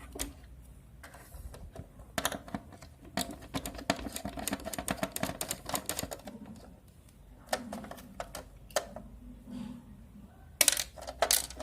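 Clicks, taps and light rattles of a home theatre unit being opened up by hand: small hardware and the casing handled. The clicking is densest in the middle, with two louder clacks near the end.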